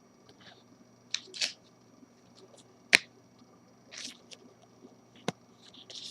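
Trading cards being handled: a few sharp clicks and short papery rustles, the sharpest click about three seconds in.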